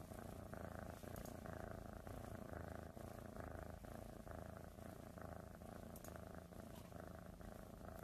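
Domestic cat purring, faint and steady, while it suckles on a person's earlobe.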